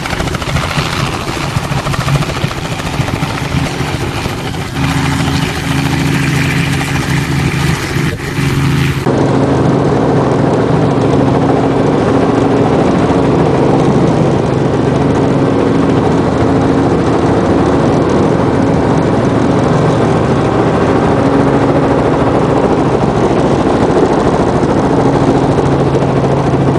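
Robinson R44 Clipper II helicopter's rotors and six-cylinder Lycoming piston engine. It is heard first from outside as it hovers low. About nine seconds in, the sound changes abruptly to the steady drone of engine and rotors inside the cabin.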